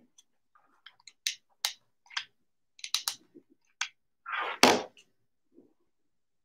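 Small plastic bottle caps clicking as they are handled and pressed together on a cloth, several separate sharp clicks. About four and a half seconds in, a louder scrape and thump as a plastic hot glue gun is set down on the table.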